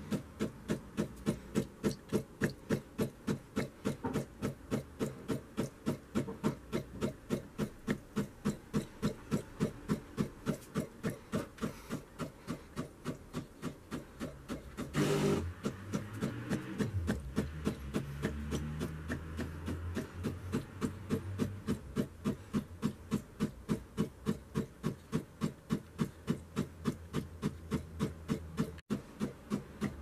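Siemens EQ.300 automatic coffee machine running its calc'n'clean descaling program: the machine's pump works in short, even pulses, about three a second, pushing descaling solution out of the outlet into a jug. A brief louder burst comes about halfway through, and a low hum runs under the pulses after it.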